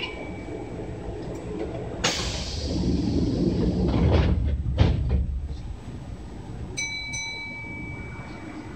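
Sliding doors of a Kintetsu 6020 series train closing: a sudden hiss of air about two seconds in, a low rumble as the doors slide, and two sharp thumps as they shut. A steady electronic tone follows near the end.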